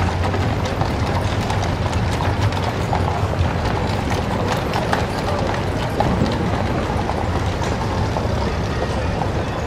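Horse hooves clip-clopping on a paved street, with many small clicks and knocks over a steady background noise.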